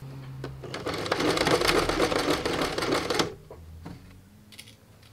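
Janome 1 Step 2319S domestic sewing machine stitching a seam through gathered cotton fabric. It runs at a fast, even stitch rate for about three seconds, then stops.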